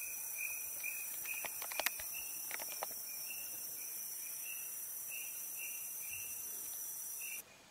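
Tropical forest insect chorus: a steady high-pitched insect drone with a regular chirp repeating two or three times a second. A few sharp clicks come about two seconds in, and the sound cuts off abruptly just before the end.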